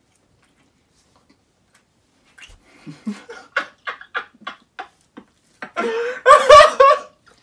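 A man and a woman laughing. After a couple of seconds of quiet, short laughs come in quick succession and build into a loud burst of laughter near the end.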